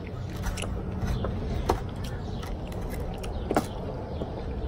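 Chef's knife chopping cooked chicken on a bamboo cutting board: a few irregular knocks of the blade against the wood, the clearest about a second and a half in and again near the end.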